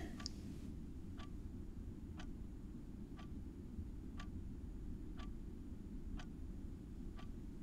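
A clock ticking quietly, about one tick a second, over a low steady room hum.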